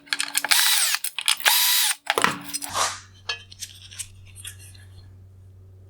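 Electric screwdriver running in two short bursts of about half a second each, backing out the screws that hold a headlight's turn signal reflector. Lighter clicks and taps of parts being handled follow.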